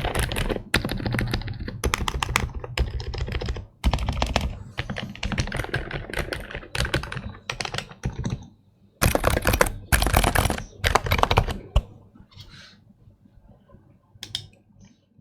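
Rapid typing on an Aula F108 Pro mechanical keyboard: dense runs of keystrokes in bursts with short pauses. The typing stops about twelve seconds in, leaving a few faint, scattered key presses.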